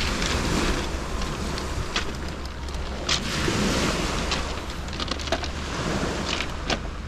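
Wind buffeting the microphone, with small waves washing onto a pebble beach and a few sharp clicks of stones.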